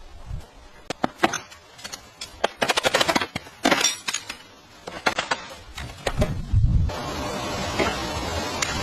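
Demolition work: a rapid run of sharp cracks, knocks and clinks of material breaking and debris falling, with one heavy thud about six and a half seconds in. After that a steady hiss-like noise takes over.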